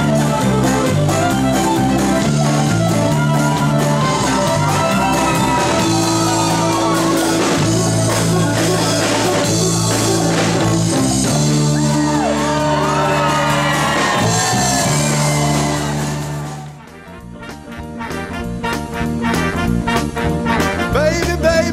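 Live band music: fiddle lead over electric bass and drums. About 17 seconds in the music cuts off suddenly, and a quieter passage with drums comes in and builds.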